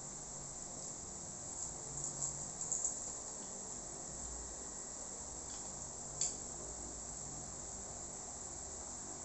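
Small crunches from biting and chewing a crisp mango pie: a few soft clicks about two to three seconds in and one sharper crunch around six seconds, over a steady high hiss.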